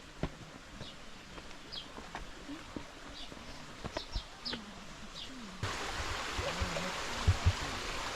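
A small bird gives short, high chirps over a quiet background. About five and a half seconds in, the sound changes suddenly to the steady rushing of a stream.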